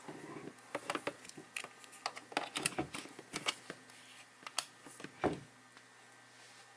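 Scattered light clicks and knocks of a plastic power meter and its power cord being handled while it is plugged in, ending with a heavier thump about five seconds in.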